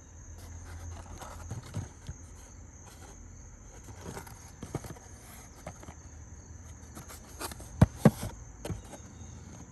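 Toy packaging being handled while twist ties are untwisted from the figures: scattered light clicks, taps and rustles, with two sharp knocks close together about eight seconds in. A faint steady high-pitched whine runs underneath.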